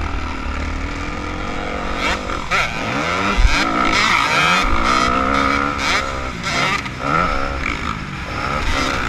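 Motocross dirt bike engine revving up and dropping back again and again as the rider works the throttle and shifts, heard from a helmet camera with wind rumbling on the microphone. A heavy thump comes about three and a half seconds in.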